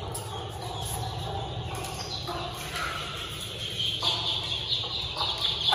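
Small chicks peeping in short, high calls as they scurry after a plate of feed, the calls growing thicker in the second half. A steady low rumble runs underneath.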